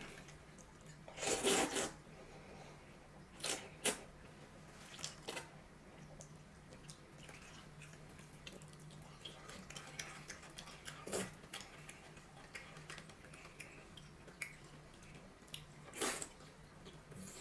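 Eating at a table: a loud noodle slurp about a second in, then chewing and sharp clicks of chopsticks against a glass bowl, and another loud bite near the end as a fried green pepper is eaten.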